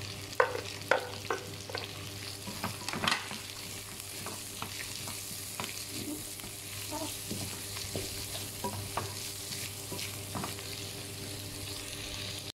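Diced onion sizzling in hot oil with frying ginger and garlic in a nonstick wok, stirred with a wooden spatula. There are a few sharp knocks of the spatula in the first three seconds as the onion is scraped in, then lighter scraping and clicks as it is stirred.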